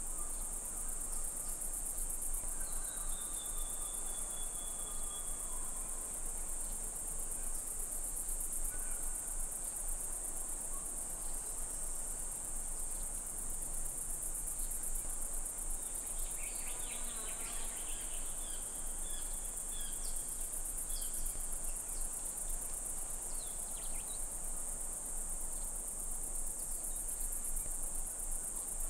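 Insects trilling steadily at a high pitch with a rapid pulse. A faint falling whistle comes about three seconds in, and faint scattered chirps come about two-thirds of the way through.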